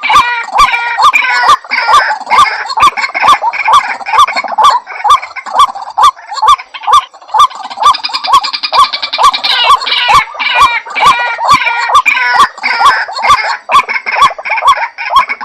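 White-breasted waterhen calling loudly over and over, a rapid chain of harsh repeated notes at about three a second, with sharp clicks among them.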